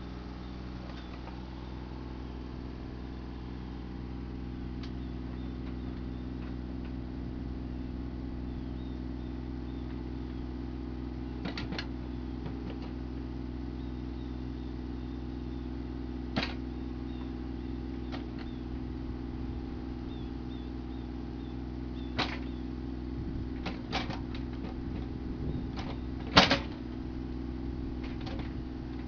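Mini excavator's diesel engine running steadily while it digs a trench, with a handful of sharp metallic clanks and knocks from the bucket striking stony soil; the loudest comes near the end.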